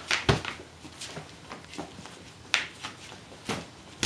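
Boxing gloves landing during sparring: several sharp thumps spread out over a few seconds, the strongest just after the start.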